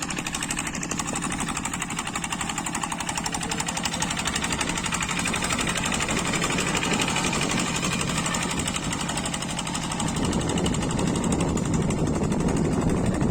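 Kubota diesel engine of a hand tractor running steadily with a fast, even chugging, growing louder about ten seconds in.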